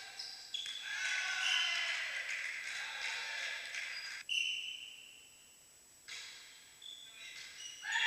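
Indoor volleyball rally in a sports hall: sneakers squeaking on the floor and ball hits, echoing. It drops to a quiet spell just after the middle and picks up again near the end.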